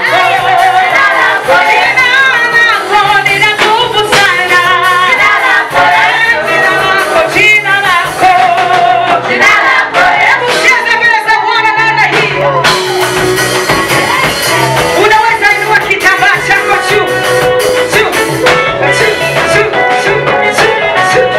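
Gospel choir singing a Swahili praise song, several voices together over a steady low instrumental backing.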